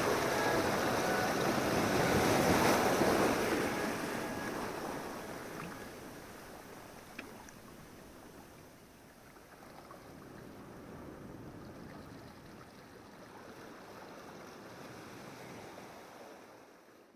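Sea water washing and splashing, loudest in the first few seconds, then lower and steady before fading out at the end.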